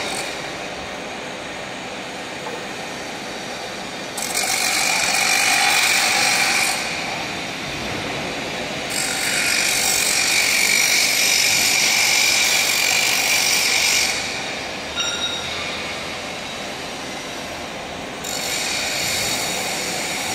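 Power tools working steel: a high grinding whine with hissing noise comes and goes in three long bursts over a steady background of machine noise, with a short clatter in between.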